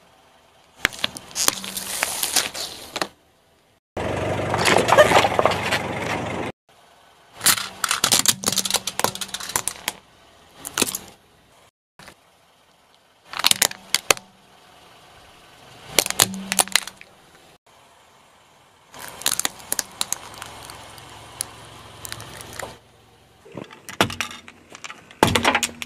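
Car tyre rolling over and crushing plastic toys one after another, including a liquid-filled bubble wand and a toy radio-control transmitter: repeated bursts of sharp cracking and crunching, each a second or two long. Several bursts break off suddenly, with short silences between them.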